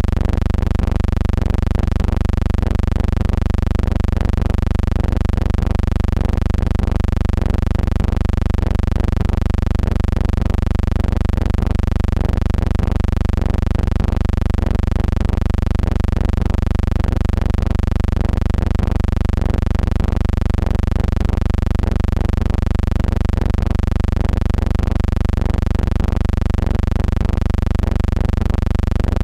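Steady low electrical hum with a stack of steady overtones and a slight regular pulsing: the noise floor of a transfer of a silent film, with no game sound on it.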